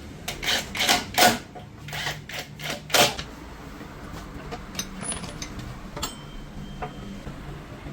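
Sharp metallic clicks and clinks of tools and metal parts being handled, a quick run of about a dozen in the first three seconds, then a few fainter ticks.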